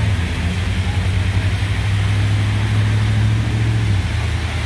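A vehicle engine idling close by: a steady low hum that eases slightly about four seconds in, over a steady hiss.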